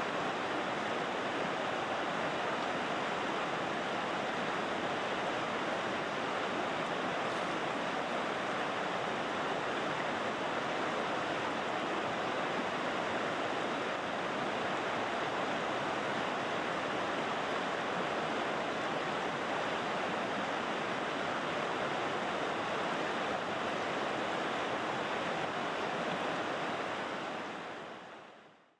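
River water rushing, a steady, even sound like white noise, fading out near the end.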